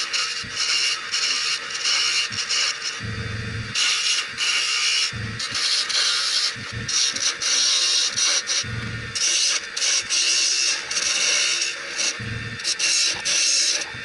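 Turning tool cutting a spinning wood spindle blank on a lathe: a hissing, scraping cut that starts and stops in strokes as the tool is worked along the wood, with a low rumble several times.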